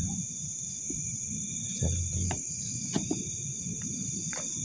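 Night insects, crickets among them, chirring in a steady high-pitched chorus. A few soft clicks and low rustles come about two, three and four seconds in.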